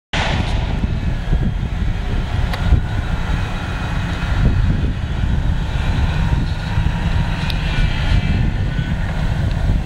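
Komatsu PC200 track hoe running hard with its stump grinder attachment working in the trees: a steady, loud, heavy rumble, with a couple of sharp snaps.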